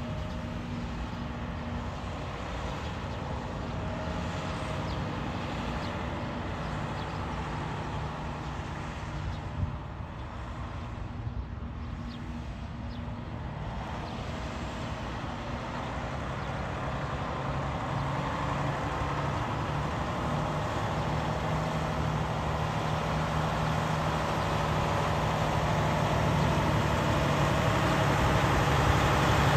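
Freightliner Cascadia 113 semi tractor's diesel engine running as the truck drives toward the microphone, faint at first and growing steadily louder as it approaches.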